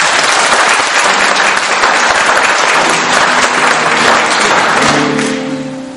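An audience applauding, a dense clatter of many hands that dies away about five seconds in as music with held notes begins.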